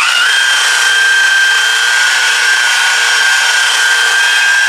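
Electric variable-speed rotary buffer with a wool pad running at steady speed, a high whine over a hiss, as the pad's edge is held lightly on the car's paint to buff out recessed pockets. It comes up to speed right at the start.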